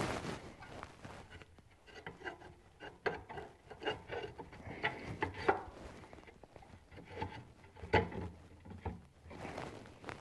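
Scattered light clicks, taps and rubbing of parts being handled inside a wood stove, with one sharper knock near the end.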